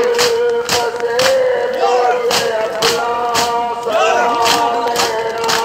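Men in a matam circle beating their chests with open hands, about two sharp slaps a second, under voices chanting long held notes in unison.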